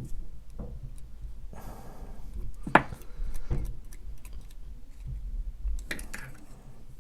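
Light clicks and rattles of small hard plastic model-kit parts being handled, with a brief rustle about two seconds in and a sharper click about three seconds in.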